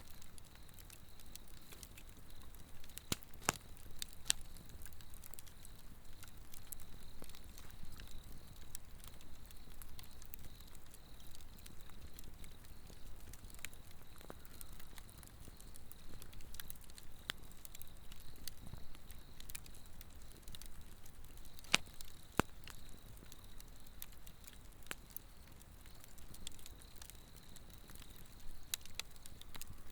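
A Swedish torch (an upright split log burning from inside) crackling, with scattered sharp pops; the loudest come about three seconds in and about two-thirds of the way through. Underneath runs a steady high insect trill.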